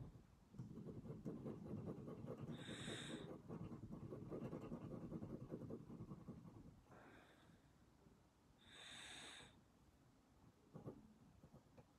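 Graphite pencil scratching softly on paper in quick, continuous strokes for about the first half, then tapering off; two breaths come through, about three seconds in and near nine seconds.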